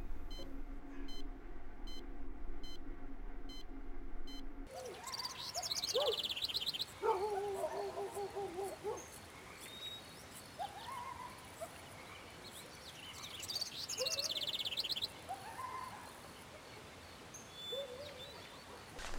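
Soft, sad string music for about the first five seconds, which cuts off abruptly. Birds then call for the rest of the time: high chirping trills and lower short rising calls, repeated every few seconds.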